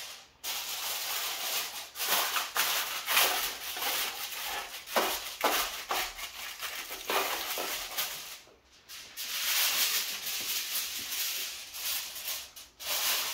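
Aluminium foil crinkling and rustling as sheets are pulled over a roasting tray and pressed down around its rim, a run of crackles with a short break about eight and a half seconds in.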